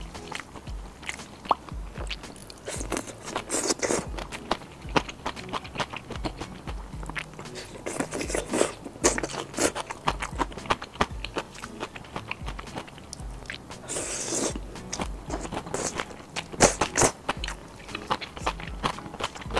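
Close-miked eating of crispy fried skewers: repeated crunchy bites and chewing, with the densest, loudest crunching about two thirds of the way in.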